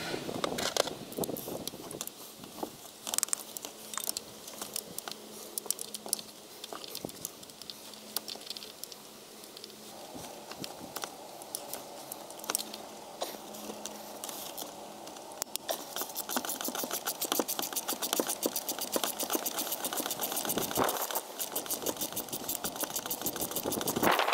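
Hand tools clicking and knocking against metal engine parts, with a screwdriver working in a car's engine bay. About ten seconds in a steady hum joins, and in the second half a fast, even ticking runs alongside.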